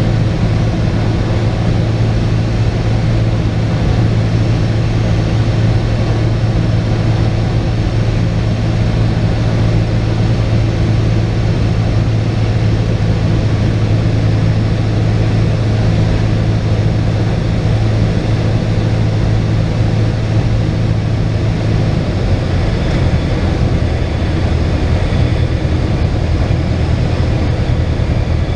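Cessna 172's piston engine and propeller running steadily on final approach, heard from inside the cockpit. About 22 seconds in, the engine note changes.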